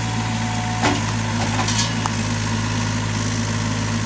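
Diesel engine of a Gehl mini excavator running steadily, with a few sharp knocks and scrapes as its bucket works the dirt and rock, about one and two seconds in.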